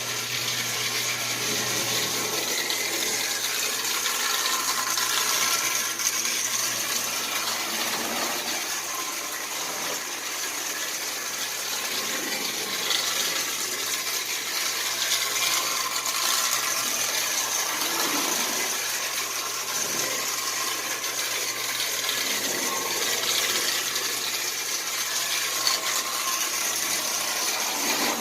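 Marx 897 toy train locomotive running on its track after a motor clean-up: the small electric motor whirs and the wheels rattle on the rails in a continuous, even noise, showing the locomotive now runs without the stop-and-go jerking.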